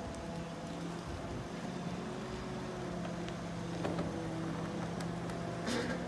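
Boatyard travel lift's engine running steadily as the hoist drives along carrying a boat hull in its slings, with a short hiss near the end.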